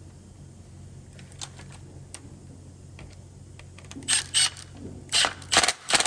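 Hard plastic and metal parts of a Steelcase Gesture chair's adjustment knob mechanism being handled during reassembly: faint ticks at first, then five short, loud clacks in quick succession near the end.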